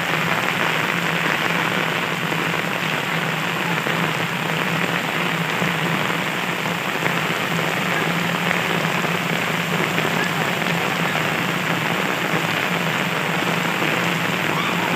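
Heavy rain falling steadily on an asphalt road and the roofs and trees around it, an even, unbroken hiss.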